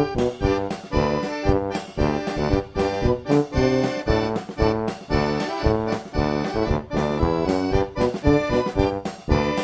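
Background music: an instrumental tune with a steady, bouncy beat.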